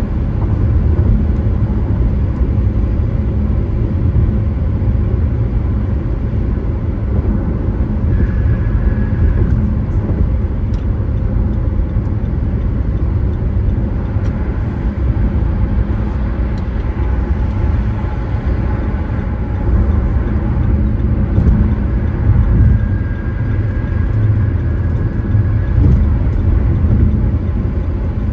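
Car driving along a road: a steady low rumble of engine and tyre noise, with a few faint, brief whining tones now and then.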